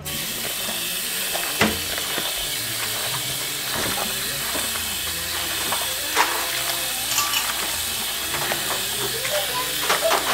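Tap water running steadily into a plastic bowl while hands rub and squeeze salted bitter melon slices under the stream, rinsing out the bitter juice. A few light knocks come from the hands and the bowl.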